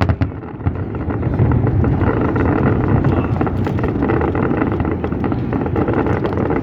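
Fireworks crackling sharply at the start, then a steady, dense rumble peppered with small crackles from a fireworks display, with wind noise on the microphone.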